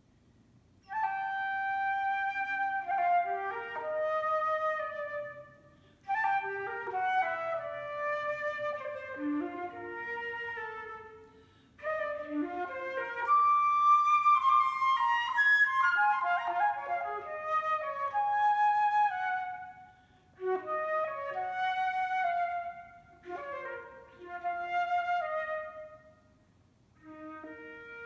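Solo concert flute playing an unaccompanied melody in phrases with short pauses between them, reaching its loudest, highest passage about halfway through.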